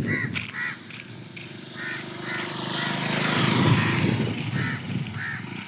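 Crows cawing in short repeated calls while a motor vehicle passes close by, its engine and road noise swelling to loudest a little past the middle and then fading.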